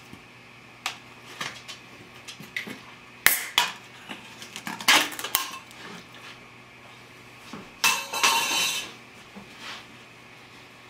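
A clear plastic tennis ball can being handled and opened: scattered clicks and knocks from the lid and the balls shifting in the tube, then a rush of noise lasting about a second, some eight seconds in.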